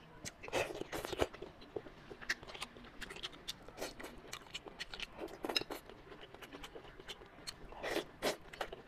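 Close-up eating sounds of braised manta ray wing, which is soft cartilage: wet chewing and biting with many small mouth clicks, and a few louder bites about a second in, midway and near the end.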